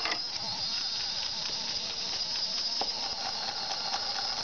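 A steady hissing, whooshing sound that starts abruptly and holds at an even level, with a bright high hiss over a fainter middle tone.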